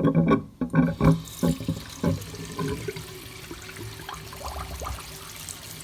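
A few sharp knocks and clatters in the first two seconds, then a kitchen faucet running steadily, boosted by a small 12-volt water pump, with a steady low hum under the sound of the water.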